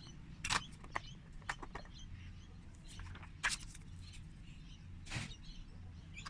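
Scattered light clicks and taps, several of them sharper, of paper-cutting tools being handled and set down on a desk, over a low steady hum.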